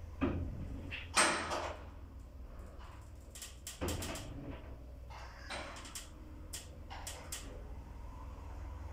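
Kone TMS lift heard from inside the car: the doors sliding shut with a couple of swishes, then a knock about four seconds in as the car starts off upward, followed by a run of short sharp clicks over a low steady hum as it travels.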